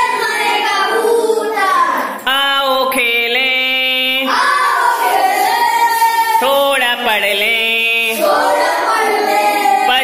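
A group of children singing a Hindi action song together, in long held notes that step up and down in pitch.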